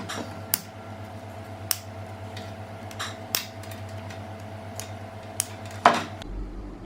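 About seven sharp clicks and light clatters of small hard objects being handled, irregularly spaced, the loudest near the end, over a steady low hum.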